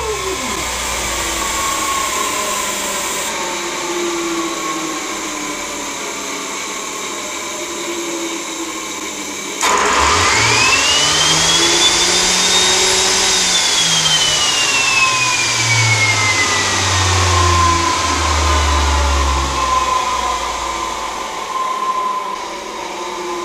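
TS-20B aircraft turbostarter, a small gas turbine, running with a loud rushing noise. About ten seconds in it abruptly gets louder. Its whine climbs to a peak, then falls steadily as the turbine settles toward idle.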